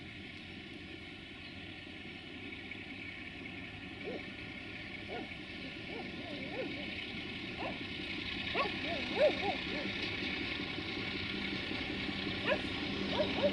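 Sulzer-engined LDE2100 (060-DA) diesel-electric freight locomotive approaching, its engine hum growing steadily louder. A dog barks repeatedly from about four seconds in, the loudest barks near the middle and close to the end.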